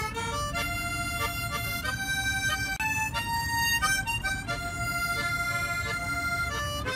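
Harmonica playing a slow melody of held notes, each note lasting up to a second or so.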